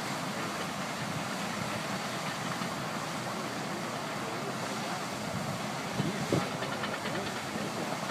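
Steady mechanical noise of heavy equipment working sand in a beach rebuild, with a couple of short thumps about six seconds in.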